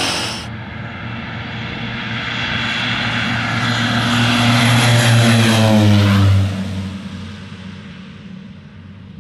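Propeller airplane flying past: its engine drone grows louder, peaks about six seconds in, then drops in pitch and fades away.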